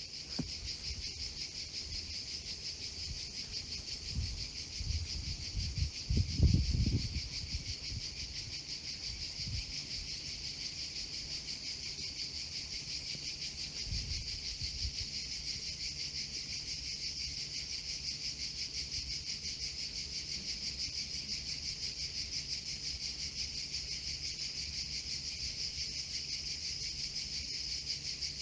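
A steady, high-pitched chorus of insects chirring with a fast, even pulse. A few low rumbles come about five to seven seconds in, and a smaller one about fourteen seconds in.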